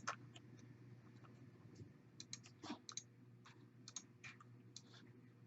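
Faint, irregular clicking of a computer mouse and keyboard, about a dozen clicks, over a low steady hum.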